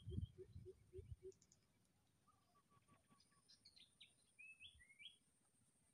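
Faint bird calls over near silence: a few short chirps and whistled notes, some falling and some rising, in the second half. Before that come a few soft low pulses about three a second, which stop after about a second.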